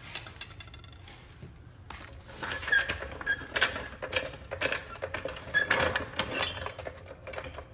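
Steel floor jack being rolled across a concrete floor: irregular metallic rattling and clinking from its wheels and frame, with a few short squeaks, mostly between about two and seven seconds in.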